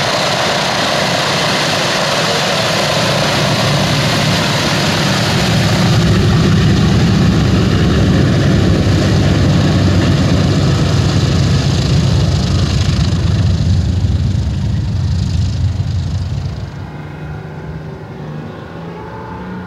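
Boeing B-17 Flying Fortress's four Wright R-1820 Cyclone radial engines running with propellers turning as the bomber taxis past. The sound grows louder about six seconds in and falls off sharply about two-thirds of the way through as the aircraft moves away.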